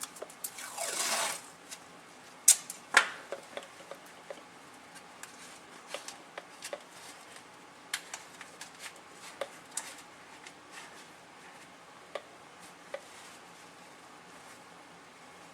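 Hand work with a rag and tape over disconnected, dripping fluid lines: a short rasp about a second in, like tape pulled off a roll, then two sharp clicks, followed by scattered light taps and rustles.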